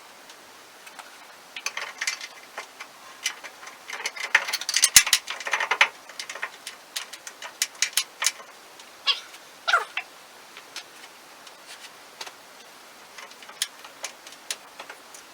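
Scattered clinks, taps and knocks of parts being handled and fitted on a sawmill, busiest a few seconds in, with a short falling squeal about two-thirds of the way through.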